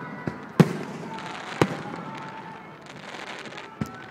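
Aerial fireworks shells bursting: four booms of varying loudness, the loudest about half a second in, with a spell of fizzing crackle from the bursting stars between them.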